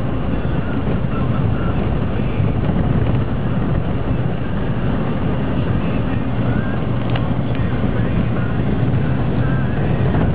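Car's engine and tyre noise heard from inside the cabin, a steady low hum while driving along a snow-covered road.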